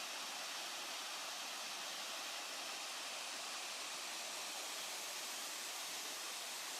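Three side-by-side waterfalls, each about 10 m high, falling steadily: an even, unbroken rushing hiss of water.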